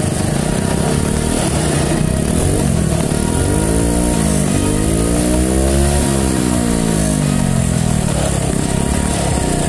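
Vespa S 150 3V's single-cylinder four-stroke engine through an Ixil IXrace M9 full-system exhaust with its dB killer fitted. It idles, then is revved up slowly over a couple of seconds and let back down to idle.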